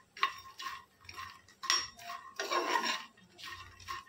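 Metal spoon stirring puffed fox nuts (makhana) around a metal pan as they roast in a little ghee: uneven, repeated scrapes and knocks of spoon on pan, each with a short metallic ring.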